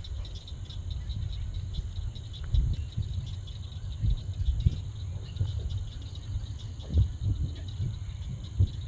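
Crickets chirping steadily in a fast, even pulse, under a loud low rumble with several short thumps.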